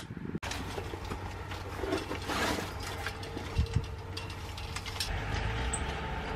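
A single hammer strike on a tent peg, then the metal scissor frame of a pop-up gazebo rattling, scraping and knocking as it is pulled open. A steady low hum runs underneath.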